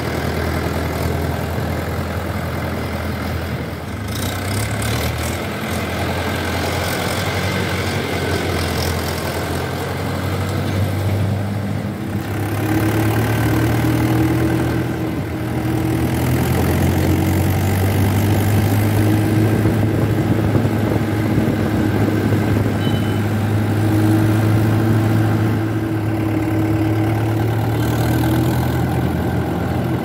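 Swaraj 843 XM tractor's diesel engine running steadily, at first more quietly and then louder with a steady low drone from about twelve seconds in as the tractor drives along the road, heard close up from the driver's seat.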